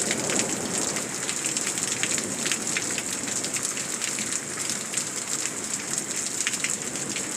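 Rain falling steadily in a thunderstorm, with many sharp, scattered drop hits.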